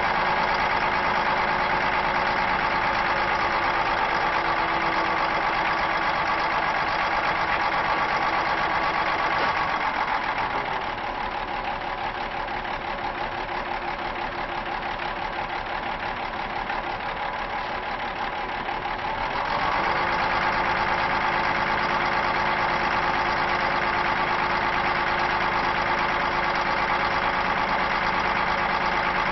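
Volvo A30C articulated dump truck's diesel engine running at raised speed while the hydraulic dump body is tipped. It drops back to a lower, quieter idle about ten seconds in, with the body fully raised, and speeds up again about twenty seconds in as the body is lowered.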